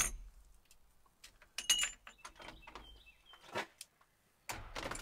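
Hand tools being handled: a sharp clink at the start, then a few lighter clinks and rattles of a socket and ratchet.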